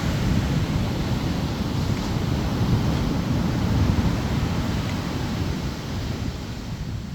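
Wind buffeting the microphone: an uneven low rumble that gusts up and down.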